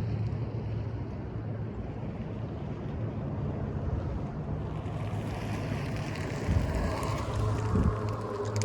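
Tesla Model Y being driven: steady road and tyre noise with a low drone. A few short, sharp clicks come in the last two seconds, of the kind the owner hears from the rear driver-side wheel on acceleration or deceleration.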